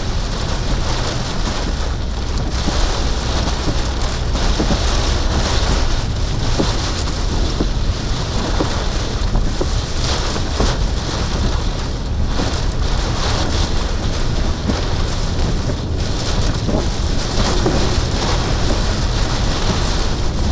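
Heavy rain and strong wind on a vehicle at the edge of a tornado, heard from inside the cab: a steady, loud wash of rain with a deep wind rumble and scattered drops tapping on the glass.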